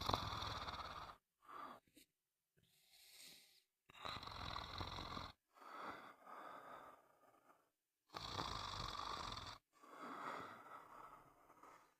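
A sleeper snoring: a series of rattling snores, each lasting about one to two seconds, with a softer airy breath about three seconds in. Each snore stops abruptly into silence.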